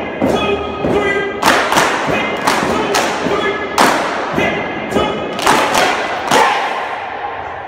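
A drill team stomping and clapping in unison, the hits coming in uneven patterns and echoing in a large hall, with the group chanting between the beats. The sound fades away near the end.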